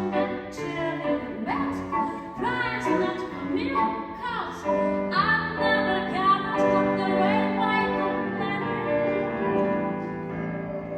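Music with a woman singing a melody over instrumental accompaniment.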